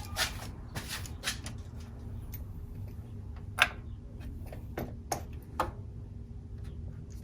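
Light metallic clicks and clinks of a socket, extension and spark plug being handled while a spark plug is put back in, spaced irregularly, with the sharpest click about three and a half seconds in, over a steady low hum.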